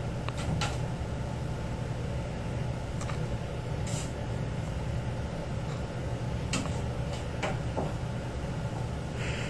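Scattered light knocks and clicks from kittens climbing and hanging on a scratcher hung over a door handle, over a steady low hum.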